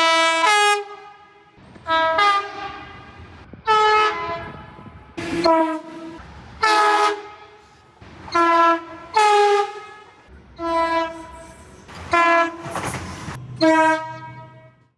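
Train horns sounding a quick series of short two-note blasts, roughly one every one to two seconds, each stepping between a lower and a higher note; the sound cuts off abruptly just before the end.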